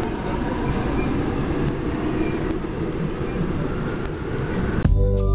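Subway train running, heard from inside the carriage: a steady rumble and rushing noise. Near the end it cuts abruptly to music.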